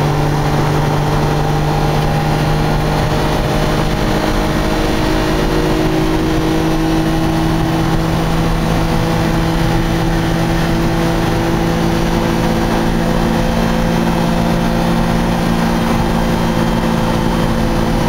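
Daihatsu Midget II's 660 cc three-cylinder engine pulling under load at highway speed through a one-off sport exhaust with its inner silencer removed, a loud, steady drone whose pitch creeps up slowly as the truck accelerates toward 100 km/h. Heard from inside the small cab, with road noise underneath.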